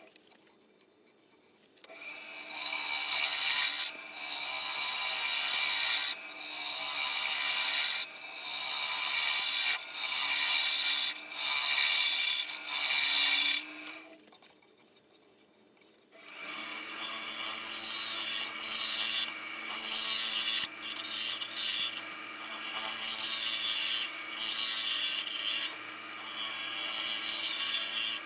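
Woodturning gouge cutting the inside of a dry spalted maple bowl on a spinning lathe: a run of rasping passes, each about two seconds long, its hiss falling in pitch, with short breaks between them. The cutting stops for about two seconds near the start and again about halfway through.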